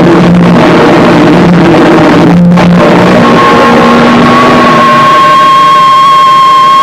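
Harsh noise music at full loudness: a dense, distorted wall of noise with stepping low drones. It drops out briefly about two and a half seconds in, and then a steady, piercing electronic tone with overtones rises out of the thinning noise.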